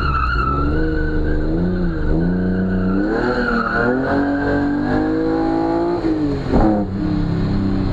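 A classic BMW saloon's engine, heard from inside the cabin, revving up and down as it is driven hard through an autocross course, with tyres squealing through the turns for most of the first five seconds. About six and a half seconds in, the revs fall sharply and pick up again, like a gear change or a lift off the throttle.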